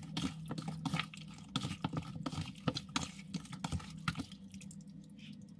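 Wet squelching and smacking of hands mixing raw chicken wings in an egg-and-spice marinade in a plastic bowl, irregular and quieter near the end.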